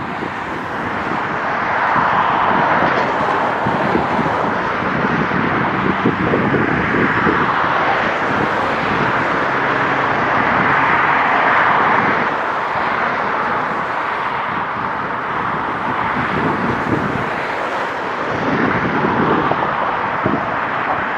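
Road traffic passing on a bridge: tyre and engine noise swelling and fading in waves as vehicles go by, with wind buffeting the microphone.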